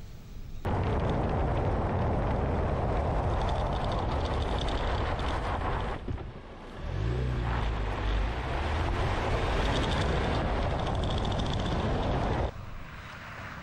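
Ford Bronco prototype driving fast on a loose gravel road, heard close by its front wheel: a loud, dense rush of tyre and gravel noise with wind that starts abruptly just under a second in. It dips briefly about halfway through, where the engine's hum comes through, then returns and drops off sharply near the end.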